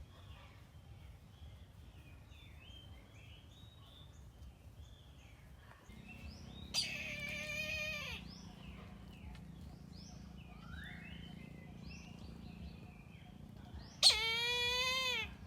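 A kite giving two loud, drawn-out cries, each about a second long with a slight drop in pitch at the end: one about seven seconds in and one near the end. Small birds chirp faintly throughout.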